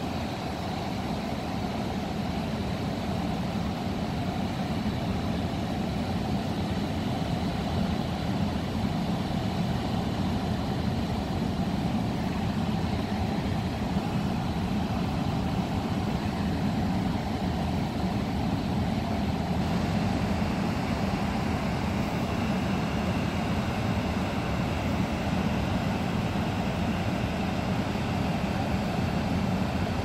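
Steady rushing of water pouring over a dam spillway, a continuous low rumble and hiss.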